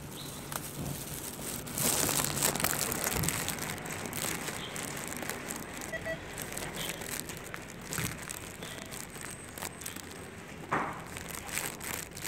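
Plastic carrier bag rustling and crinkling as it is carried, mixed with scattered clicks and knocks from footsteps and handling. The rustling grows louder about two seconds in, with a short louder burst near the end.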